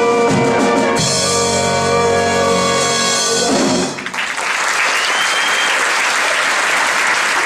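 The music ends on a long held chord with brass prominent. About four seconds in, it gives way to audience applause, which carries on steadily.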